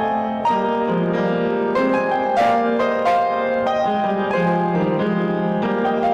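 Solo piano playing a slow, sustained melody with chords.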